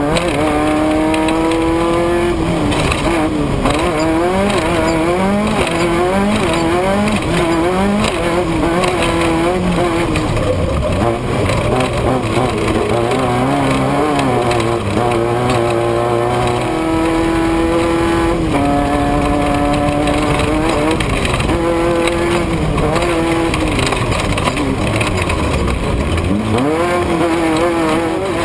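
Off-road race vehicle's engine running hard, its pitch climbing and dropping again and again through the rev range and shifts, held steady for stretches. A second, lower engine note joins in the middle.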